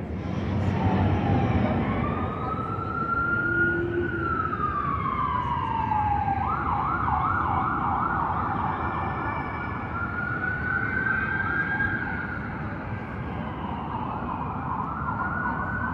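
Emergency vehicle siren, a slow rising-and-falling wail that switches to a fast yelp about six seconds in, returns to the wail, then goes back to the yelp near the end. A steady low rumble of city noise runs underneath.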